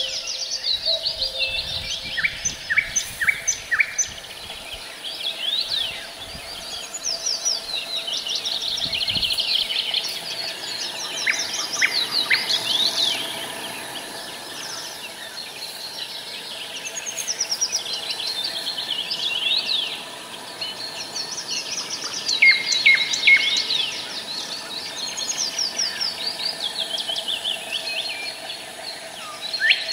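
Several songbirds singing over one another in overlapping phrases of quick trills and falling runs of notes, repeating every few seconds.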